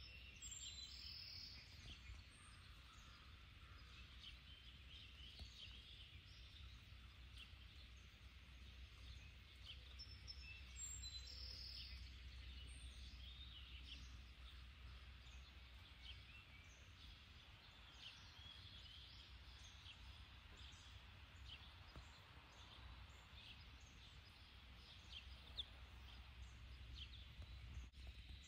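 Faint outdoor ambience: scattered short, high bird chirps over a low steady hum.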